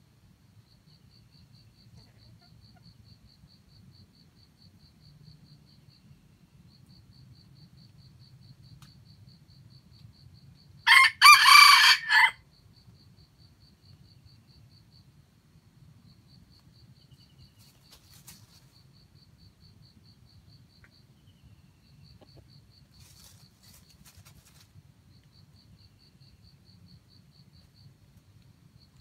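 A red junglefowl rooster crows once, loud and close, about eleven seconds in: a short crow of about a second and a half, broken into a few pulses. A faint, high, pulsing insect trill runs steadily behind.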